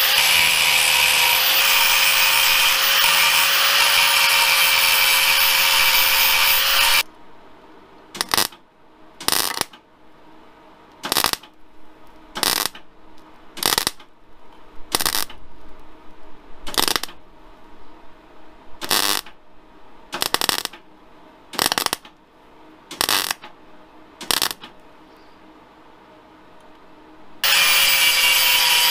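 Angle grinder running on a steel Land Rover Series III axle casing with a steady whine, stopping about seven seconds in. A MIG welder follows with about a dozen short bursts of tack welding on the casing, and the grinder starts again near the end.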